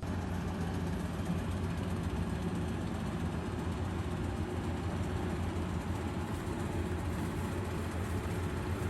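A steady, low rumbling noise, like a running vehicle or its road noise, starting suddenly and holding at an even level.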